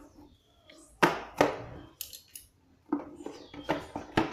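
Pocket knife blade slitting the seal stickers on a cardboard smartphone box, with sharp scrapes and knocks as the box and knife are handled on a tile floor.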